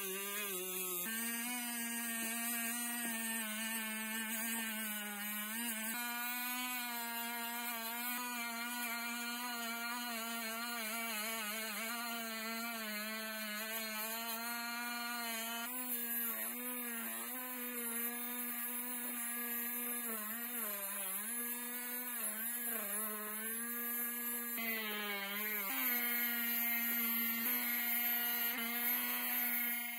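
High-speed rotary tool with a rubber abrasive wheel running steadily, polishing rust off a ratchet wrench's steel drive gear and head. Its whine sags and wavers in pitch at moments as the wheel is pressed into the metal.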